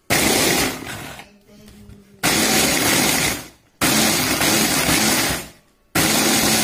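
Hand (stick) blender on its chopper bowl grinding dry biscuits into crumbs, run in four short pulses of a second or two each with brief pauses between.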